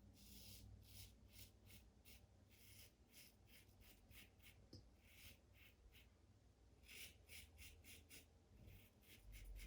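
Faint, quick scratching strokes of a Blackland Vector safety razor cutting lathered stubble, about two or three short rasps a second.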